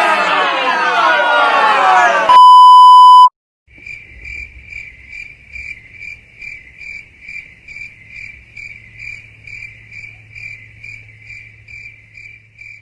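A run of stock sound effects: about two seconds of a dense, swirling sweep, then a loud one-second censor bleep on a single steady tone. After a short gap comes cricket chirping that pulses about two to three times a second over a low hum: the classic 'awkward silence' crickets effect.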